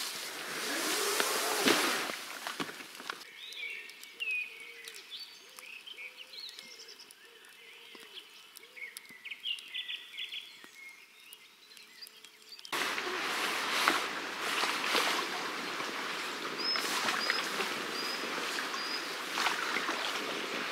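Leafy brush rustling and scraping against an inflatable kayak; after about three seconds it gives way to a quieter stretch of songbirds singing with faint crackles from a campfire. About thirteen seconds in, a steady rushing noise takes over, and near the end a bird whistles a short phrase four times.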